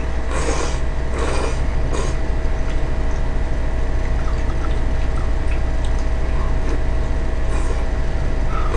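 A steady low hum throughout, with a few short wet slurping and chewing sounds of noodles being eaten in the first two seconds.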